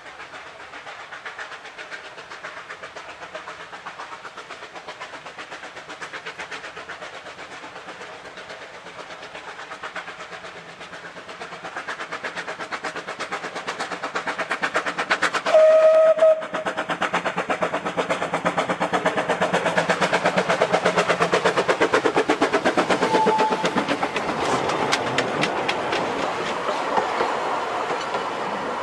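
Two Vale of Rheidol 2-6-2 tank steam locomotives, double-heading a train, working toward and past with rhythmic exhaust beats that grow louder as they approach. A short steam whistle blast about halfway through is the loudest sound. Near the end the coaches roll close past, their wheels clicking over the rail joints.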